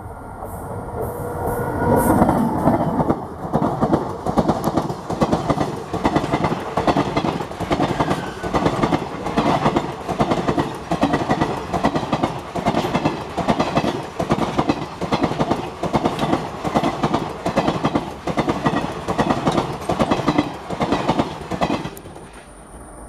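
Express train hauled by an electric locomotive passing close by at speed. The sound builds to a loud rush about two seconds in as the locomotive goes by, then the coach wheels clatter over the rail joints in a steady, regular rhythm, which stops abruptly near the end.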